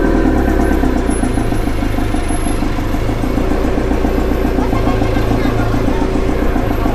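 Engine of a small utility vehicle running steadily with a rapid, even firing pulse, heard from the covered, open-backed rear bed where passengers ride.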